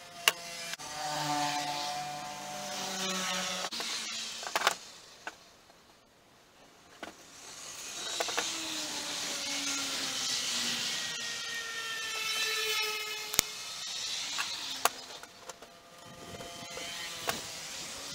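A tool working the steel of a motorcycle disc brake, in three stretches of a few seconds each with short pauses between. The tool makes a noisy scraping sound with several shifting squealing tones, and there are sharp clicks and knocks scattered throughout.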